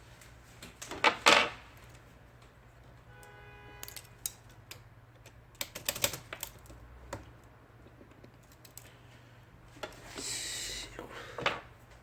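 Scattered sharp clicks and clacks of the metal mechanism of an IBM Selectric II typewriter being handled during a return-cable repair, loudest about a second in. There is a short squeak-like tone a little past three seconds in and a brief rasping noise about ten seconds in.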